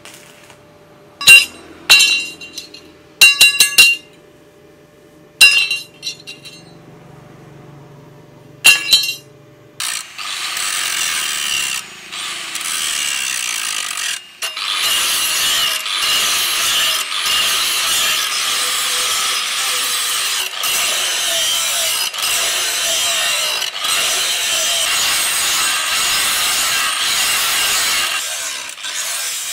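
A few sharp strikes on steel that ring briefly, in five short groups, then, about ten seconds in, a steady rasping of a hand tool working the steel knife blank cut from a saw disc, with a slight rise and fall every second or two.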